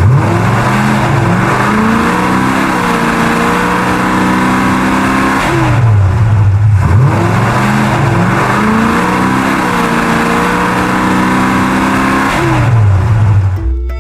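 Car engine revving and accelerating, its pitch climbing and then holding. The same passage of about seven seconds is heard twice, with a short drop between the two.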